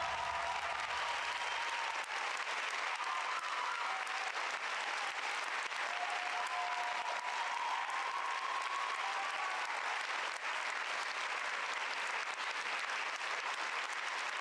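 Large audience applauding steadily at the end of a dance performance.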